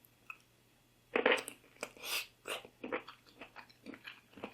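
A person biting into boiled king oyster mushroom and chewing it close to the microphone: one bite about a second in, then chewing at about three chews a second.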